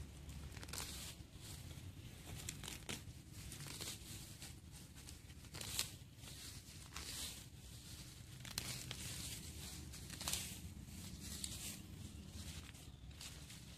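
Grass and weeds being pulled up by hand: irregular rustling and tearing of stems and leaves, with a few sharper tears standing out.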